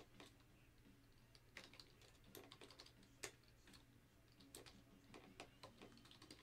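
Faint typing on a computer keyboard: irregular keystrokes, several in quick runs with short pauses between.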